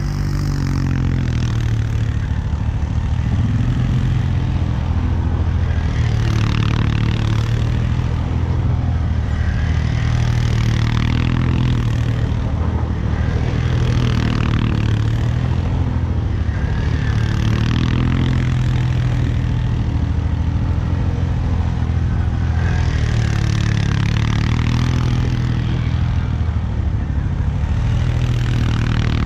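Arctic Cat 450 ATV's single-cylinder engine revving up and easing off over and over as it spins donuts in mud and snow. Each rev comes with a hiss of slush and mud flung from the spinning tyres.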